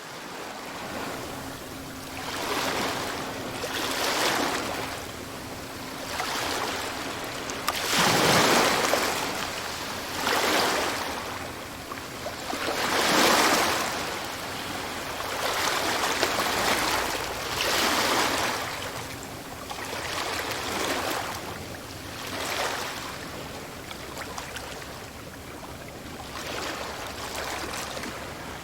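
Sea waves breaking and washing up a shore, a surge about every two and a half seconds, the largest about eight and thirteen seconds in.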